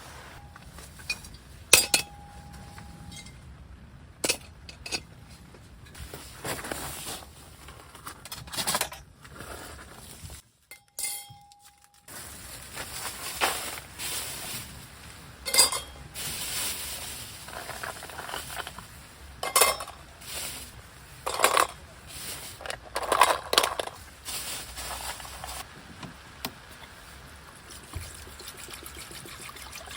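Scattered clinks and knocks of dishes, glass and utensils being handled, over a steady background hiss, with a brief drop to near silence about ten and a half seconds in.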